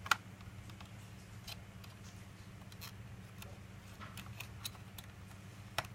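Small clicks and taps of plastic laptop parts being handled while a replacement cooling fan is seated in the open case. One sharp click comes right at the start and another near the end, with fainter ticks between, over a low steady hum.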